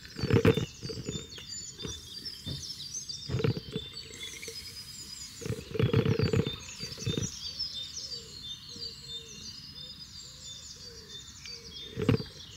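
Water from an outdoor tap splashing into a plastic bottle in a few short bursts as the tap is opened briefly and shut again, topping the bottle up to a marked line; the longest burst is about halfway through. Birds chirp throughout.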